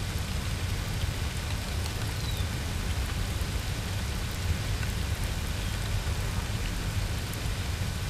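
Steady rain falling on marsh water, a constant hiss flecked with fine drop ticks, over a continuous low rumble.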